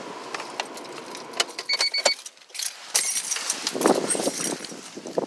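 Keys jingling and scattered clicks around a car, with a short run of electronic beeps about two seconds in and a crunchy burst near four seconds.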